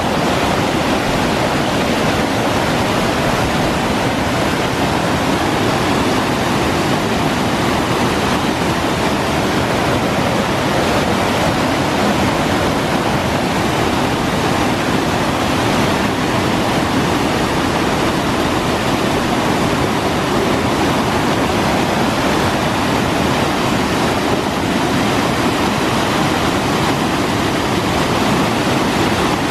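Steady loud rush of a river pouring over a small dam and churning into whitewater below it.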